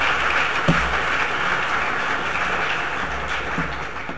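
Audience applauding, a steady crowd of clapping that dies away near the end.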